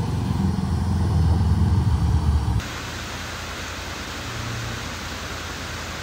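Willys Jeep truck engine running low and steady, cut off abruptly about two and a half seconds in and replaced by a quieter, even rushing noise.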